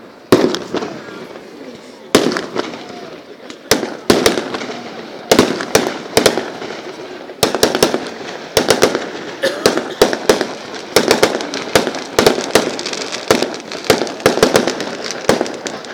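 Aerial fireworks bursting in a run of sharp bangs and crackles. The bangs come about one every second or two at first, then several a second from about halfway through.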